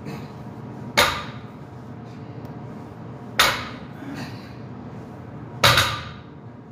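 Deadlift barbell loaded with 315 lb of iron plates set down on a rubber gym mat between reps: three sharp clanks, each with a short ringing tail, about two and a half seconds apart.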